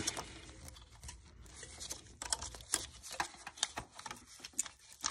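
Irregular light clicks and taps of small engine parts being handled and set against a bracket, a few of them louder.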